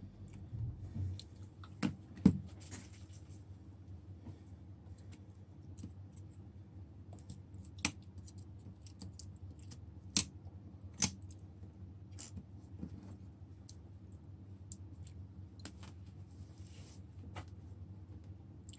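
Scattered sharp clicks and taps from small parts and tools being handled on a workbench, the loudest a knock about two seconds in, over a steady low electrical hum.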